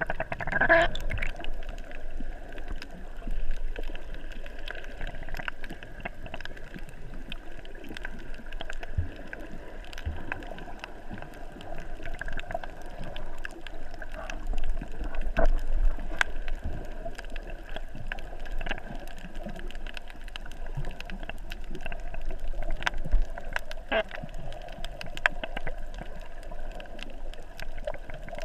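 Underwater sound heard through a submerged camera: muffled water movement and gurgling bubbles, with many scattered short clicks over a low rumble.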